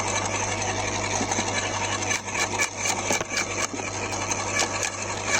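Electric garden shredder running with a steady hum as a thorny stick is fed in; from about two seconds in, a quick run of cracks and snaps as the wood is cut up.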